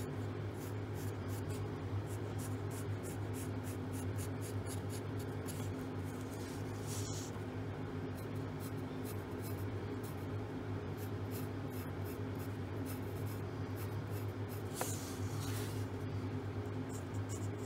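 Wooden pencil scratching on paper in many short, quick strokes while drawing, over a steady low hum.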